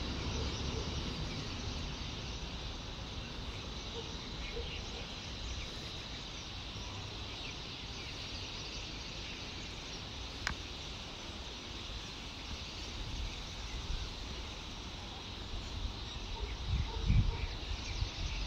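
Outdoor background noise: a steady low rumble with a faint high steady whine over it. There is one sharp click about ten seconds in, and a few low thumps near the end.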